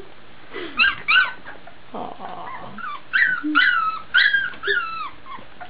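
Young Labrador Retriever puppy crying: short high-pitched whimpers that fall in pitch, two about a second in, then four in quick succession from about three seconds in. It is the distress cry of a pup that has wandered off alone from its littermates.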